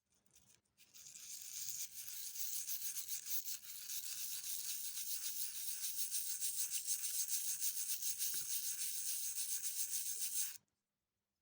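A stiff brush scrubbing the surface of an old copper coin in rapid strokes: a steady, fluctuating hiss that stops suddenly near the end.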